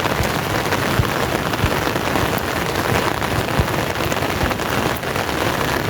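Heavy rain falling steadily, a dense even patter with scattered low thuds of drops striking close by.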